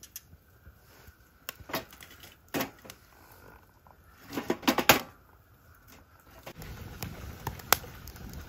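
Split firewood sticks knocking and clattering against each other and the sides of a small metal fire box as they are stacked in, in a few separate clunks with a cluster of them about four to five seconds in. After that, a steady low rush with scattered sharp crackles as the wood fire burns.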